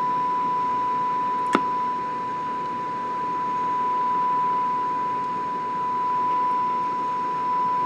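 Steady, pure audio test tone from a signal generator's modulated 455 kHz IF signal, coming out of a 1940s Warwick Troubador tube radio's speaker during IF alignment; its loudness dips and swells a little as the set is peaked. A single sharp click about a second and a half in.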